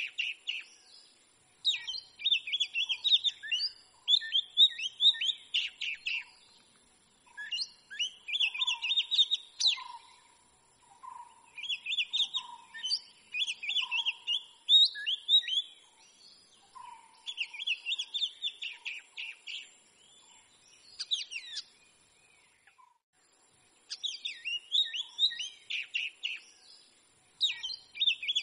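Oriental magpie-robin singing: bursts of quick, varied whistled phrases a few seconds long, separated by short pauses.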